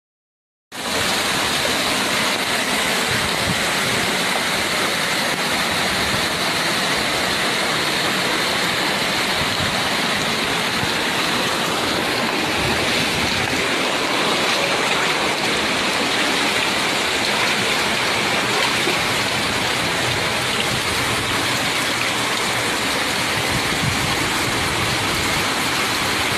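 Heavy storm rain: a steady, dense hiss that starts abruptly about a second in and holds unchanged.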